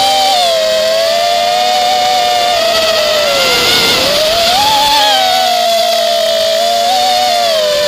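FPV quadcopter's electric motors and propellers whining steadily. The pitch sags about halfway through and climbs back a second later as the throttle changes.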